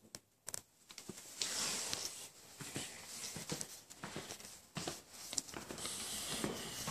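Faint footsteps and the rustle of clothing and a handheld camera as someone walks across bare floors: irregular soft clicks and scuffs with patches of rustling.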